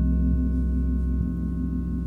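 A gong's deep, pulsing low wash carries on under several metal singing bowls ringing steady, sustained tones. Another bowl is struck softly just after the start, adding fresh tones to the ring.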